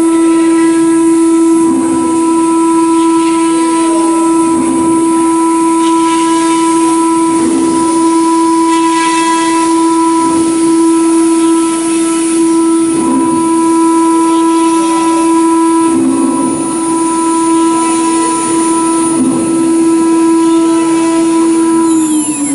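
CNC router spindle running with a steady high whine while its end mill cuts grooves in a sheet, the cutting noise swelling about every second and a half. Right at the end the whine starts to drop in pitch as the spindle winds down.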